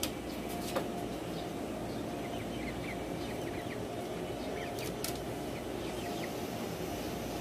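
Faint, short high bird chirps in scattered runs over a steady low background rumble.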